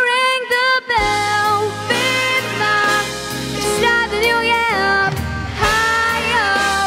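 A young girl singing a solo vocal into a handheld microphone over instrumental accompaniment. Her held notes waver. The accompaniment is thin at first and comes in fully about a second in.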